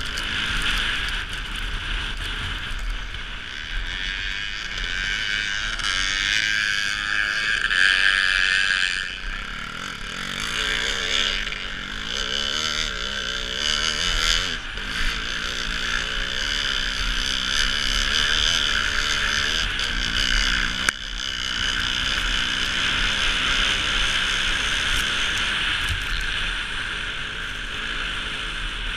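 Motocross bike engine ahead revving up and down as it tows a skier on a rope over snow, heard from the skier's end, over a steady rush of wind.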